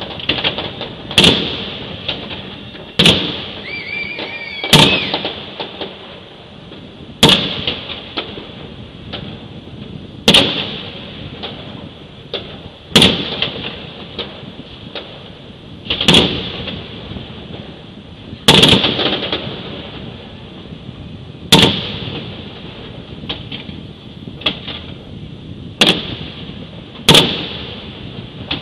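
Aerial firework shells bursting: about eleven loud, sharp bangs, one every two to three seconds, each trailing off in a rolling echo.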